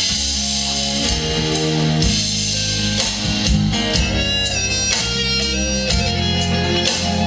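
Live band playing an instrumental passage at a sound check: electric guitar chords over sustained bass notes, with no vocals.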